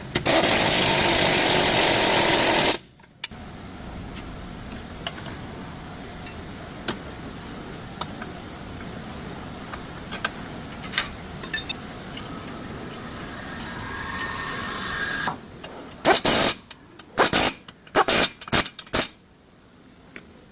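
Workshop power-tool noise: one long loud burst at the start, then scattered clicks and clanks over a steady background, and several short loud bursts near the end.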